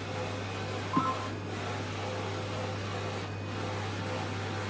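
Steady background noise of laboratory equipment: a continuous low electrical hum over an even machine hiss.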